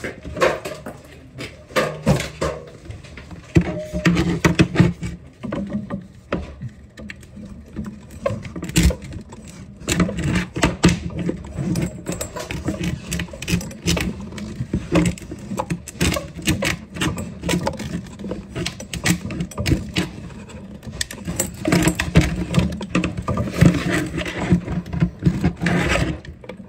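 Pipe cutter being worked around a water pipe, with a dense run of metal scraping and clicking as it is turned.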